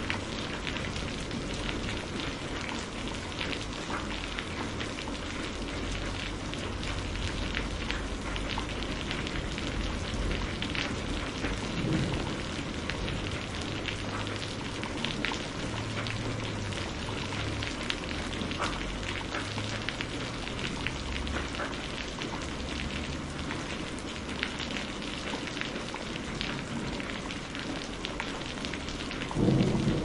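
Steady rain falling, with many small drops pattering and a low rumble of distant thunder underneath. A louder roll of thunder begins about a second before the end.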